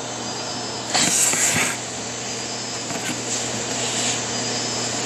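Steady hiss of room noise with a low hum, and a louder rustle of the phone being handled and set down about a second in, lasting under a second.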